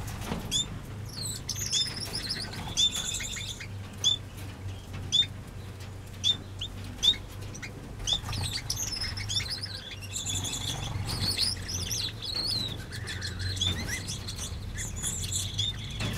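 Small aviary birds chirping and twittering: many short, repeated chirps from several birds at once, over a steady low hum.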